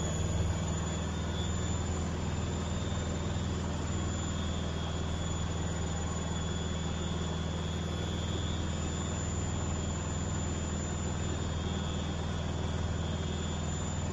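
Washing machine in its final spin, drum and motor running at speed with a steady low hum and a faint high whine. The load is badly unbalanced, so the machine is shaking as it spins.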